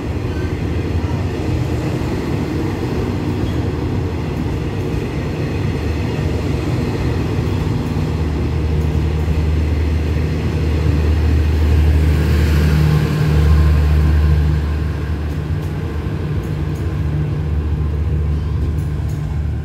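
A large engine running with a low, steady drone. It grows louder about eight seconds in, is loudest around twelve to fourteen seconds, with a brief rushing hiss, then eases back.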